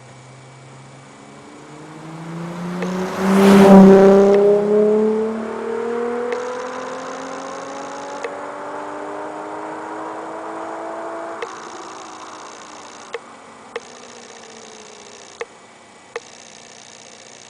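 Nissan VQ35HR 3.5-litre V6 exhaust through an Amuse Titan titanium muffler, with the car accelerating hard. It is loudest about four seconds in, then its pitch climbs steadily until a lift-off about eleven seconds in, after which it falls away and fades.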